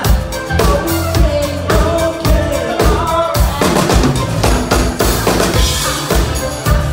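Live rock band playing, the drum kit prominent with a steady kick and snare beat, under bass guitar and a woman singing into a microphone; a cymbal wash swells about five seconds in.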